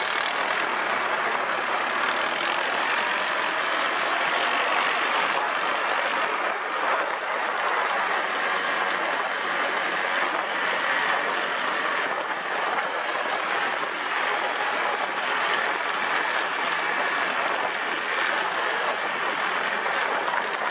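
ATV riding along with its engine running steadily, mixed with a constant rush of wind over the camera's microphone.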